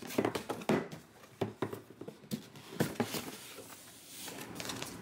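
A cardboard box being opened by hand: the lid and flaps scraping and knocking, then hands rustling through the crumpled packing paper inside, a run of irregular scrapes and crinkles.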